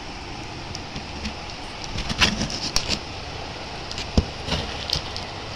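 Hands handling a cardboard shipping box up close: scraping and rubbing on the cardboard and packing tape, with a cluster of sharp knocks around the middle and one louder knock about four seconds in.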